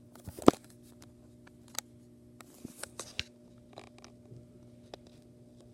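Scattered light clicks and taps, the loudest about half a second in, over a steady low electrical hum.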